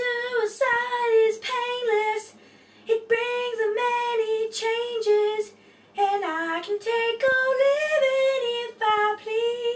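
A young female voice singing unaccompanied, a run of held notes mostly near one pitch, in phrases broken by short pauses.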